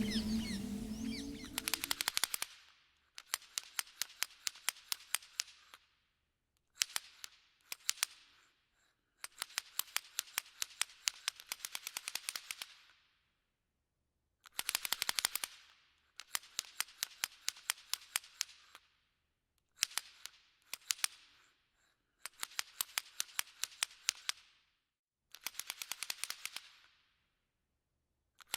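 Rapid clicking in short runs of one to three seconds, with silent gaps between them; background music fades out at the start.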